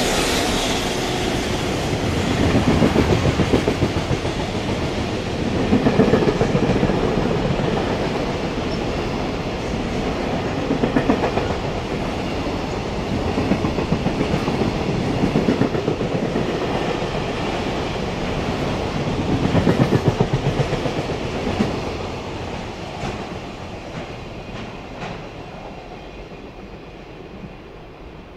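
Container freight train rolling past, its wagons' wheels clattering rhythmically over the rail joints. The clatter swells and eases in waves as groups of wagons go by, then fades away over the last few seconds as the train draws off.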